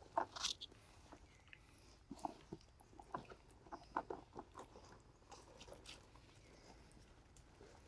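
Young macaques eating yellow fruit: faint, irregular chewing and smacking, soft wet clicks and small crunches at uneven intervals.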